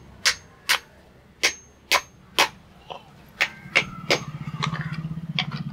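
Hammer striking metal, about ten sharp ringing blows at an uneven pace of roughly two a second, as a rat trap is shaped by hand. A low steady hum comes in over the last part.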